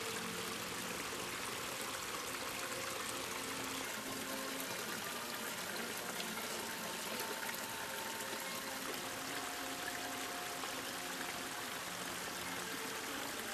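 A small garden stream trickling and splashing steadily as it spills over rocks in little cascades into a shallow pool.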